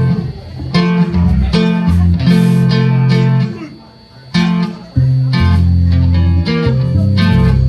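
Amplified guitar strumming chords in short groups over sustained low bass notes, with a brief drop in playing about four seconds in: a band sound-checking its instruments.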